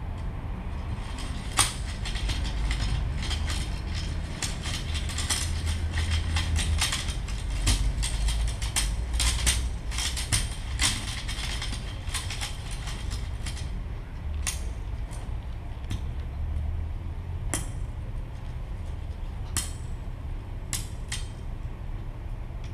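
Amplified dry plant materials, among them a bundle of dried stalks, being rubbed, flicked and handled, giving dense crackling clicks through loudspeakers. The crackling thins to scattered single clicks after about thirteen seconds, over a steady low rumble from the amplification.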